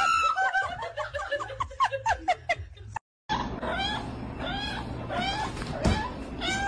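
A woman laughing in quick high-pitched bursts, cut off abruptly about three seconds in. Then a cat yowling repeatedly, one drawn-out call roughly every second.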